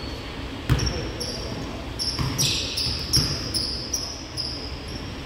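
Basketball bouncing on a gym court, a loud thump about a second in and several more bounces, mixed with repeated short high-pitched sneaker squeaks on the floor.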